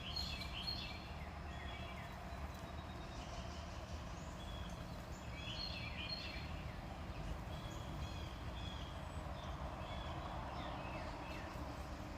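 Backyard songbirds chirping and calling, short repeated chirps throughout with two busier clusters of calls, one at the start and one about six seconds in, over a steady low background rumble.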